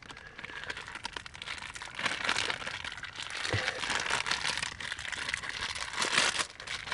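Clear plastic bag crinkling as bannock mix and water are squeezed and kneaded by hand inside it. It is a dense crackle that grows louder about two seconds in.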